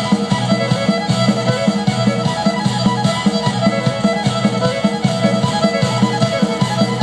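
Amplified live dance music led by a fiddle, with guitar and a steady quick beat, played through the stage speakers for the dancers.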